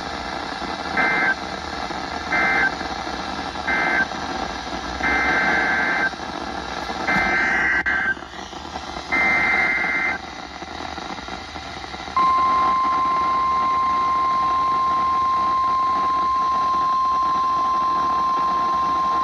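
Emergency Alert System data bursts on NOAA Weather Radio: three short end-of-message bursts, then three longer SAME header bursts for the next alert, each a harsh two-tone warble. From about 12 seconds in, the steady single-pitched NWS warning alarm tone sounds, over a hissy radio background.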